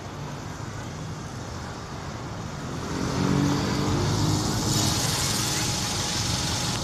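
A bus driving past close by: its engine grows louder about three seconds in, then a rushing noise of the passing vehicle takes over near the end.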